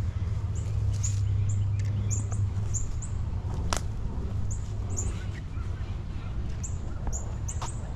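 A small bird chirping repeatedly, short high-pitched chirps every half second or so, over a steady low rumble. A single sharp click sounds about four seconds in.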